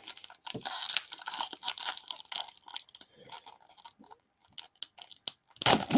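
Baseball cards being handled and slid against each other: a scratchy rustling for the first couple of seconds, then scattered quick clicks as cards are flipped.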